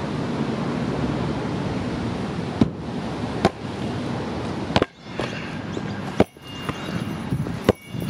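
Steady wind noise, then five sharp knocks spaced unevenly about a second apart.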